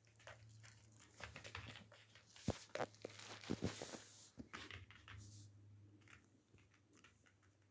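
A puppy chewing and gnawing on a stuffed toy's plastic voice box: faint irregular crunching, crackling and clicking, busiest in the middle.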